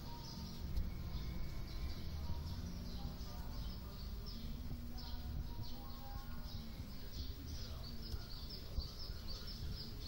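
Small birds chirping over and over in short, high, falling notes, over a steady low rumble of outdoor background noise.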